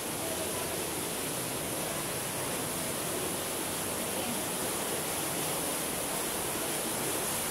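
Steady rushing of a stream flowing through a narrow rock gorge, an even wash of water noise.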